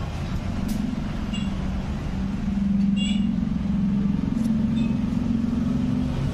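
A motor vehicle's engine running steadily with a low hum, getting louder about two and a half seconds in.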